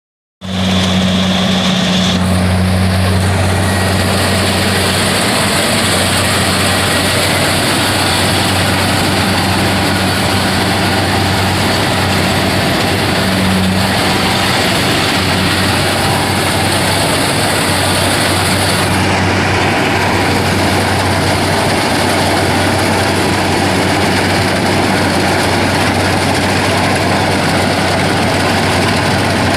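Kubota engine running steadily at a constant speed: a low, even hum with dense mechanical clatter over it.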